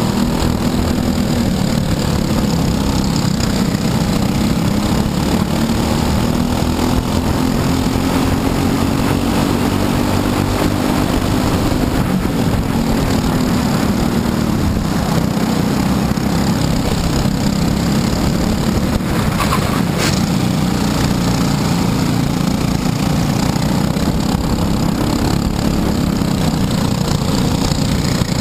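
Briggs & Stratton LO206 four-stroke single-cylinder kart engine running at race pace. Its pitch climbs as it accelerates and drops again as it slows for corners.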